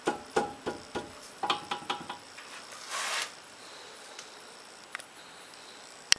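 Irregular metallic clicks and rattles from a car's brake and suspension area over rough pavement, each with a short ringing tone, packed together in the first two seconds and again in a sharp cluster near the end, with a brief hiss about three seconds in. The owner suspects play in the brake caliper, with dry, worn slide pins.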